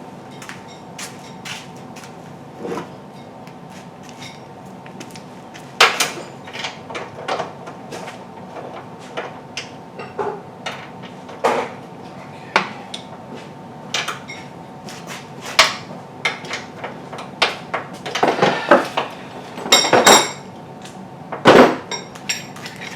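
Irregular metallic clinks and clanks of hand tools, a ratchet, sockets and metal parts knocking together, with a louder flurry of clanks near the end.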